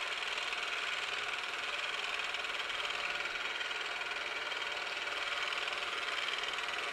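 Milling machine spindle running steadily at about 1100 RPM with a 3/8-inch four-flute end mill, not yet cutting; an even motor and drive hum with a high whine.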